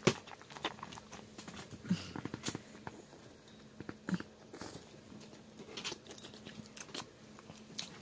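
French bulldog chewing a hand-fed snack: a string of small crunches and wet mouth clicks, with a few brief low grunt-like sounds.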